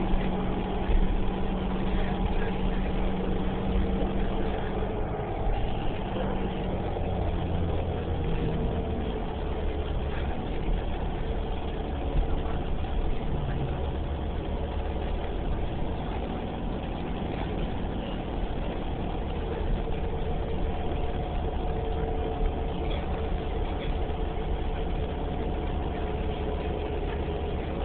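Cabin sound of a 2011 New Flyer Xcelsior XDE40 diesel-electric hybrid transit bus: a steady low engine hum with several steady higher tones over it. The low hum changes pitch about nine seconds in.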